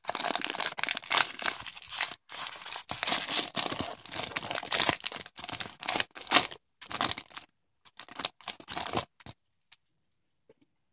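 Wrapper of a 2015 Score football card value pack being torn open and crinkled: continuous tearing and crinkling for about the first five seconds, then shorter rustles as the cards are pulled out, stopping about nine seconds in.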